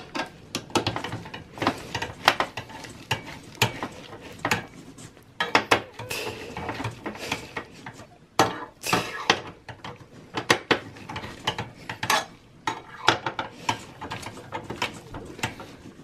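Screwdriver tightening the screws of a CPU heatsink, with irregular small metal clicks and scrapes throughout.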